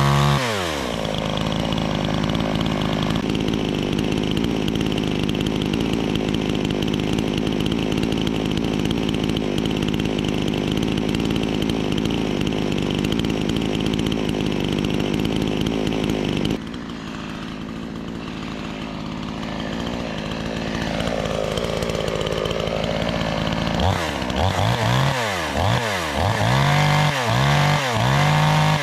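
New chainsaw's two-stroke engine. It drops from high revs back to a steady idle about a second in and runs on, a little quieter after the middle. In the last few seconds the throttle is blipped repeatedly, the engine note rising and falling with each blip.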